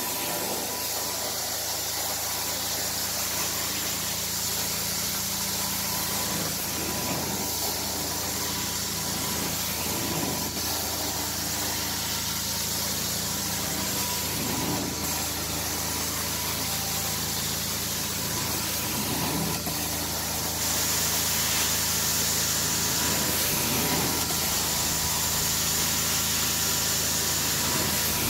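Carpet-cleaning extraction wand drawn across carpet: a steady hiss of suction and air through the wand over a constant machine hum. The sound shifts briefly every few seconds and gets louder about three-quarters of the way through.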